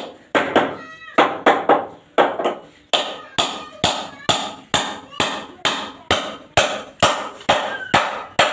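Hammer driving a nail into a wooden frame joint: steady strikes about three a second, each with a short ring.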